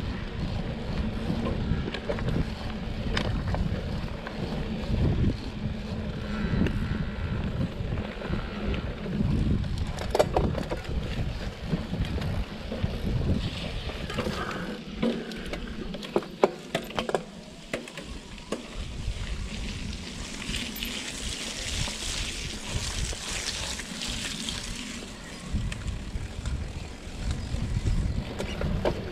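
Wind rumbling on the microphone over the noise of a vehicle on the move, with a few sharp clicks and knocks partway through.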